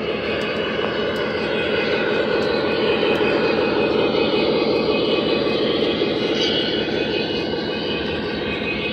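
Lionel O scale three-rail model train rolling past on the track, a steady rumble that swells about midway and eases off toward the end.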